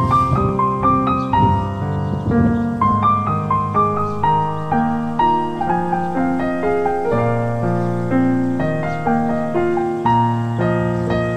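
Background piano music: a gentle melody over chords, the notes changing a few times a second.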